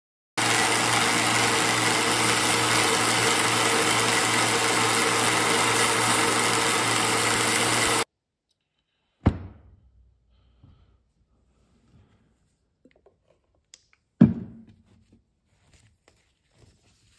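Belt grinder running steadily with a motor hum under the belt noise, cutting off abruptly after about eight seconds. Then two sharp knocks on the workbench about five seconds apart.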